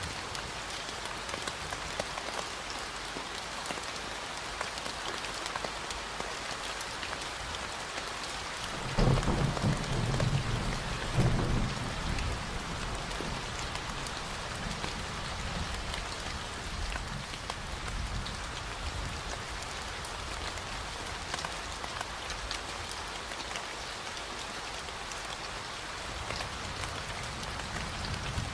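Steady rain falling, a dense even hiss of drops. Two louder low rumbles rise out of it about nine and eleven seconds in.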